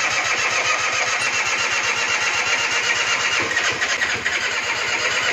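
Electric starter cranking the Junak 806 scooter's 50cc two-stroke engine: a steady whirring with fast, even pulsing that never picks up, so the engine does not catch. The owner puts the failure down to a fouled spark plug.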